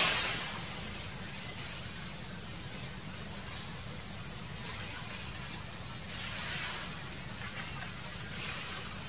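Steady high-pitched drone of insects over a low outdoor rumble, with faint swells of hiss every couple of seconds. A louder hiss dies away at the very start.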